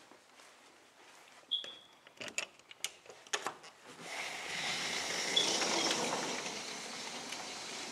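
A sliding glass door being handled: a short squeak, then a run of sharp clicks and knocks from its frame and latch. After that comes a few seconds of steady rushing noise that swells and then eases.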